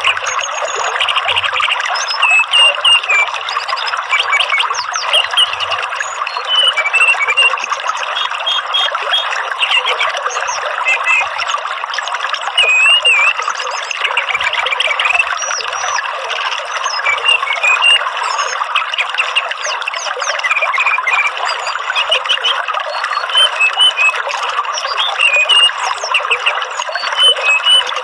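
Songbird chirps and short whistled phrases repeating over a steady rushing hiss, like running water, in a bird-lure recording.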